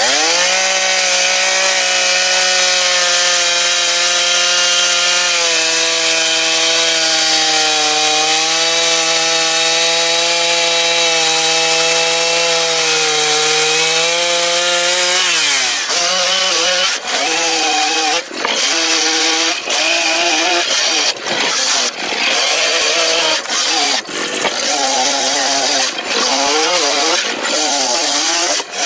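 ECHO CS-501 SX two-stroke chainsaw cutting into an oak trunk, held at a steady high pitch under load for about fifteen seconds. Then the pitch drops briefly, and the saw runs on with the throttle blipped up and down through a series of short cuts.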